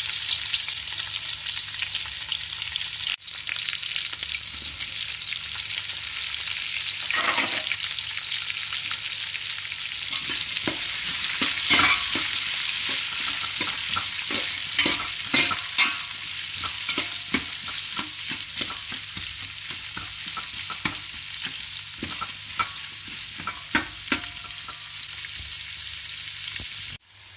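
Sliced onions sizzling in hot oil in a large aluminium pot, a steady frying hiss. From about ten seconds in, frequent short clicks and scrapes as the onions are stirred.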